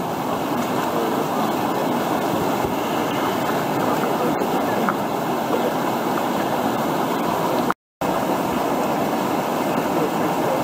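River whitewater rushing steadily over a standing wave and rocks. The sound cuts out completely for a split second about eight seconds in.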